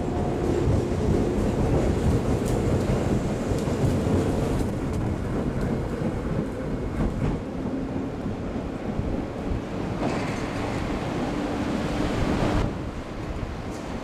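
A train running on the station tracks, a steady rumble with a faint droning tone, against wind buffeting the microphone in a blizzard. The train noise drops away suddenly near the end, leaving the rush of wind.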